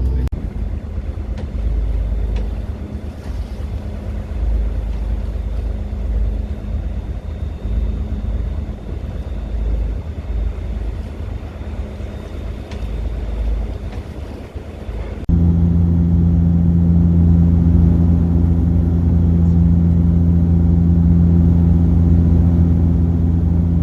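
A low, uneven rumble with faint steady tones, then a sudden switch about fifteen seconds in to a louder, steady engine drone with a clear low pitch, typical of a canal boat's engine running.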